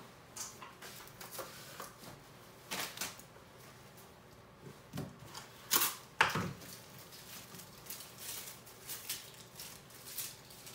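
Kitchen prep noises: scattered light clicks, taps and knocks of utensils and dishes. A louder pair of knocks comes about six seconds in.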